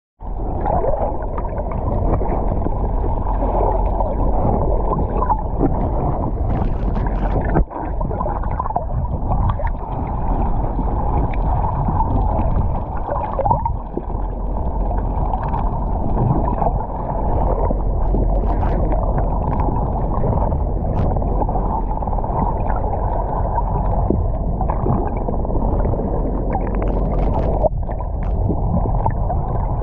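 Steady, muffled underwater rushing and rumbling of water, heard from below the surface, with a few faint knocks.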